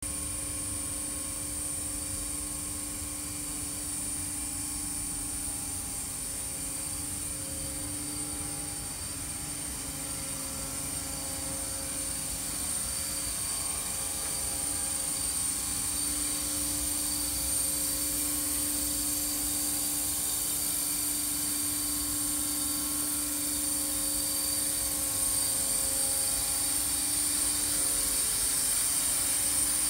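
Steady machine hum with several constant tones and a high-pitched whine, with no rhythmic clatter, rising slightly in level after about ten seconds.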